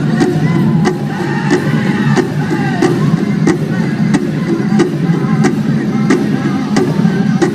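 Powwow drum group playing a chicken dance song: a big drum struck in a steady beat about twice a second, with singers' high, wavering voices over it.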